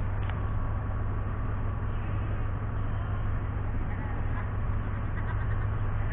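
A steady low machine hum, as of an engine or motor running, with a faint steady whine above it.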